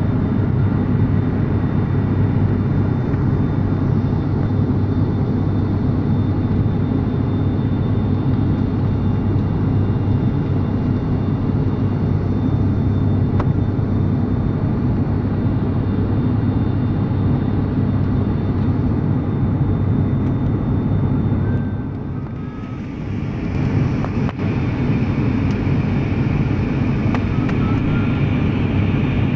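Cabin noise of a turboprop airliner in flight: a steady, loud drone of engines and propellers with a low hum. About 22 seconds in it dips briefly and then comes back with a higher steady whine added.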